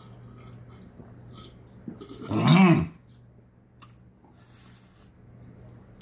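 A man downing a glass of liquor in one go: faint swallowing, then about two seconds in a loud drawn-out 'ahh' that rises and falls in pitch as the drink goes down. A small click follows.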